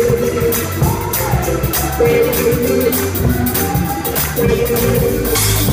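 Live gospel band playing: organ and keyboard chords over a drum kit with steady cymbal hits.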